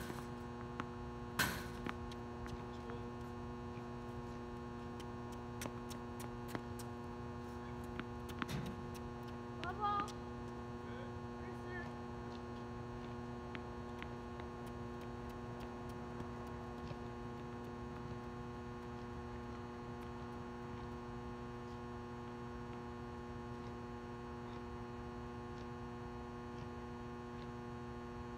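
Steady electrical mains hum with a buzz of evenly spaced tones. A few sharp knocks, tennis-ball hits, cut through it in the first two seconds, with fainter ones around eight to ten seconds in.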